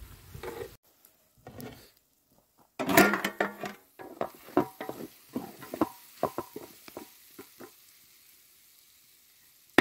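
Chicken frying in a large metal pot, stirred with a wooden spatula: a run of scrapes and knocks against the pot with sizzling, busiest about three seconds in and dying away before the end.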